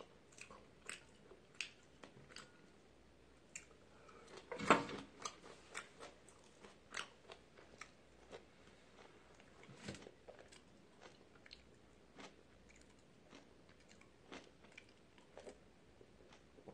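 A man eating ramen close to the microphone: faint chewing with many small, irregular clicking mouth noises, and one louder eating noise about five seconds in.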